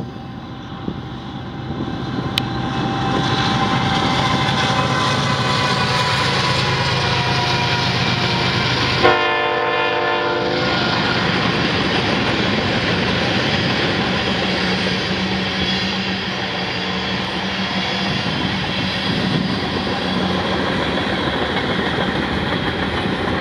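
Long freight train passing close by: the rumble grows over the first few seconds as it arrives, then goes on as a steady rumble and clatter of freight cars rolling over the rails. About nine seconds in the train's horn sounds one short blast, under two seconds.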